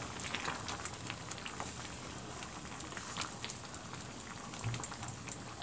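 Pot of lentil and bottle-gourd dal simmering with soft popping bubbles, while a wooden spatula stirs through it and now and then clicks against the cast-iron pot.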